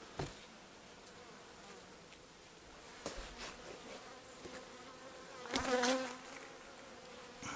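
Honeybees humming in an opened hive, with a few light clicks and knocks. About five and a half seconds in, a bee buzzes close by, the loudest sound, for about half a second.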